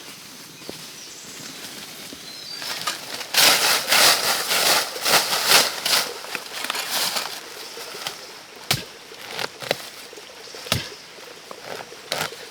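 Dry leaves and brush rustling and crackling loudly for a few seconds, followed by a couple of sharp, separate wooden snaps or knocks.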